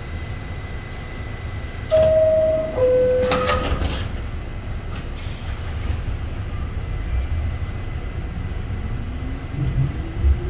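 New York City subway car at a station: the door-closing chime sounds as two descending tones, then the sliding doors knock shut. Near the end the traction motors start a rising whine as the train begins to pull away, over a steady low rumble of the stopped car.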